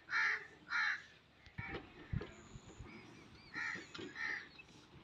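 A crow cawing: two harsh caws right at the start and two more near the end, with a few soft knocks in between.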